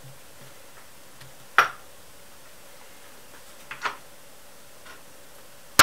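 A few sharp metal clicks and knocks as parts of an Emco Unimat SL lathe and its jigsaw attachment are handled and knocked together: one about one and a half seconds in, a pair near four seconds, and the loudest at the very end.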